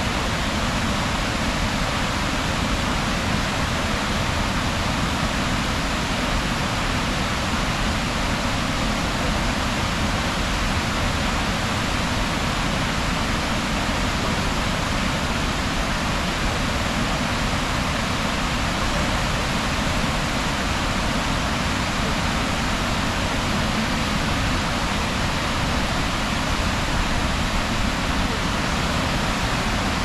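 Waterfall rushing in a steady, unbroken roar of falling water.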